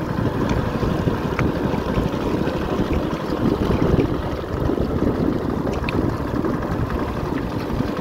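Small boat under way across water, a steady rumbling rush with wind buffeting the microphone.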